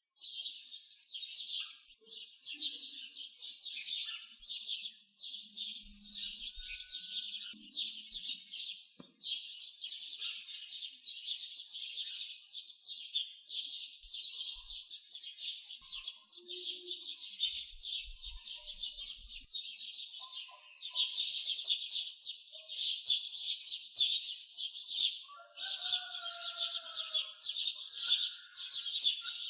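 Birds chirping in a dense, continuous chorus of rapid high calls, with a few lower whistled notes from another bird near the end.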